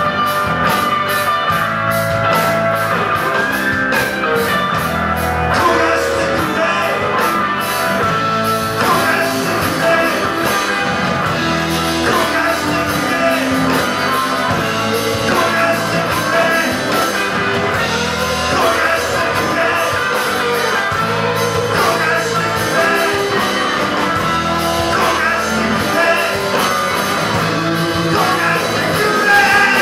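Live rock band playing: distorted electric guitars, bass guitar and drums, with a male lead vocal from the guitarist at the microphone. A steady cymbal beat is clear over the band in the first few seconds.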